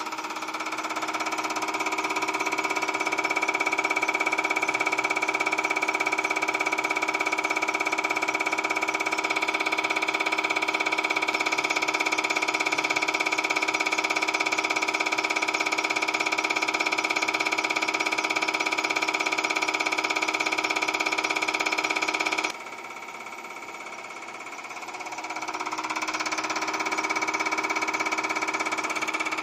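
CR966 common rail injector test bench running a measuring-cup test: the bench's motor-driven high-pressure pump and the injector firing into the measuring cup make a steady machine hum with a high steady tone. It builds over the first few seconds, cuts off abruptly about three-quarters of the way through, and builds again near the end.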